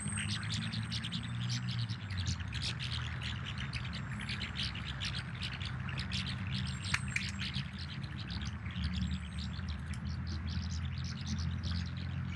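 Many small birds chirping continuously, with a low steady hum underneath.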